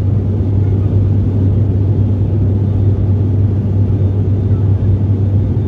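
Cabin noise of a turboprop airliner in flight: a steady low propeller drone with the rush of engine and airflow, unchanging throughout.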